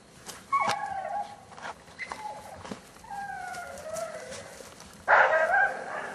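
Belgian Malinois puppy whining and giving short barks, worked up in prey drive: a series of high-pitched cries, some sliding down in pitch, with the loudest about five seconds in. Short sharp clicks fall between the cries.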